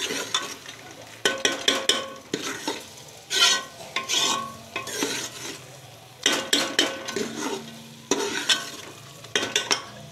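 Steel spoon stirring and scraping a thick chana dal and chicken mixture against the sides of an aluminium pressure cooker, in bursts of scrapes and knocks about once a second, some with a short metallic ring. A low sizzle runs between the strokes as the last of the water cooks off over high heat.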